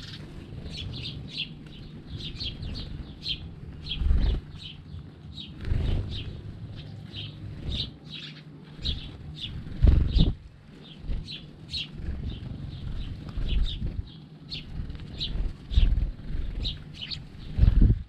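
A flock of house sparrows chirping almost constantly in short high chirps. Several low bursts of wing flapping come from birds moving close by, the loudest about ten seconds in.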